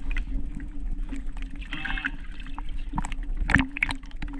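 Water sloshing and splashing around a fish landing net held in the water at the boat's side, with irregular sharp clicks and knocks; the loudest splash comes about three and a half seconds in.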